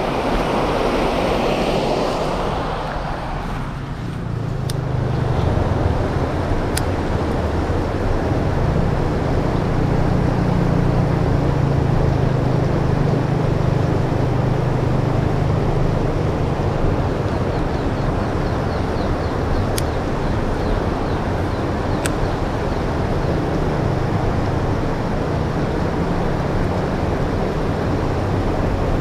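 Water rushing steadily over a low concrete weir in an irrigation canal, a constant wash with a deep rumble beneath it. A few sharp clicks stand out.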